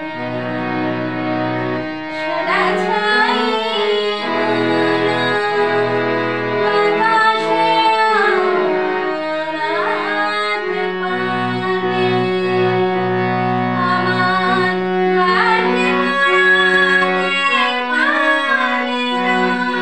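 A woman singing while accompanying herself on a harmonium: the harmonium's reeds hold steady sustained notes under her voice, which slides and bends between notes.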